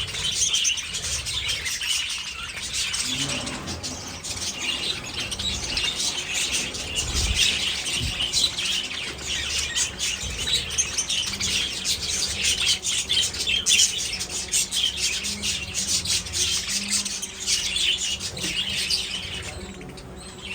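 A flock of budgerigars chirping and chattering, with many overlapping chirps at once. The chirping thins out shortly before the end.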